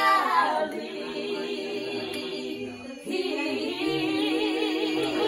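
Women singing a gospel hymn a cappella, holding long notes; the phrase breaks off briefly about three seconds in and a new phrase starts with a wavering vibrato.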